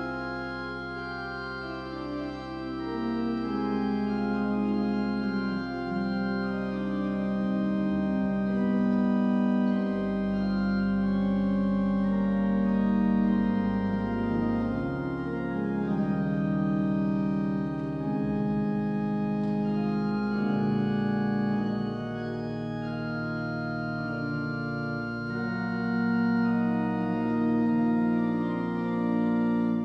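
Church organ playing slow, sustained chords, the harmony and bass changing every few seconds.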